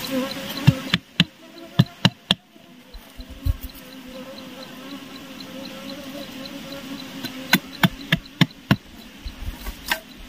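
An insect buzzing steadily close by, its hum wavering slightly. It is broken by sharp knocks of a knife cutting bamboo sticks: a quick cluster about a second in and another near eight seconds.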